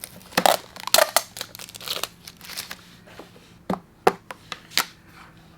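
Tissue paper crinkling and rustling in irregular bursts as it is unwrapped by hand, followed by a few sharp ticks near the end.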